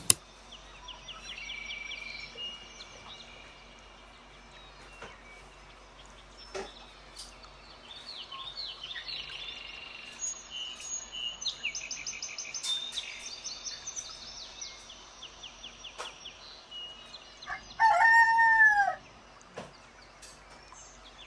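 Small birds chirping and twittering throughout, and a rooster crowing once near the end, the loudest part. A sharp click sounds right at the start.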